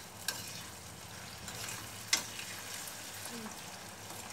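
Chili, tomato and squid sambal sizzling in a stainless steel frying pan as it is stirred, with two sharp knocks of the utensil against the pan: one about a third of a second in and a louder one halfway through.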